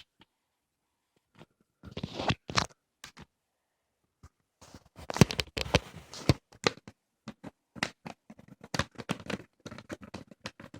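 A cardboard toy box being opened and handled: tearing, scraping and irregular clicks of packaging, busiest in the second half.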